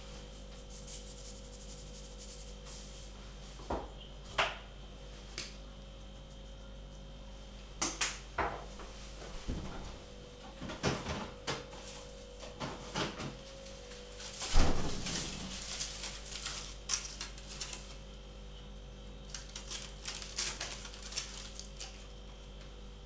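Scattered taps, knocks and rustles of hands working with food and utensils on a kitchen worktop, with one sharper knock about two thirds of the way through, over a steady low electrical hum.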